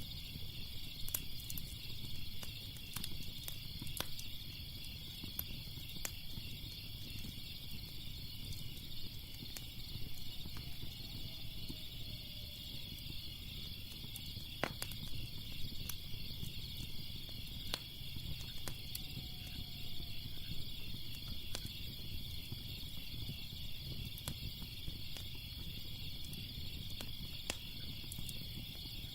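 A crackling fire gives scattered sharp pops and snaps over a low rumble, while a steady, pulsing chorus of crickets keeps going behind it.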